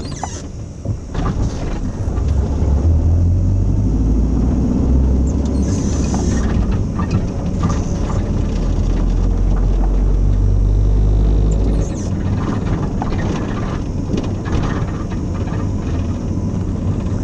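Low engine and road rumble heard from inside a moving vehicle. It grows louder about two seconds in and eases off at about twelve seconds.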